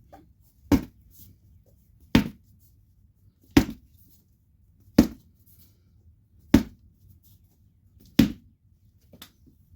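Six hard, evenly spaced knocks, about one every second and a half, with a lighter tap near the end: the tire being struck to break its bead loose from a 10-inch minibike rim so it can come back off.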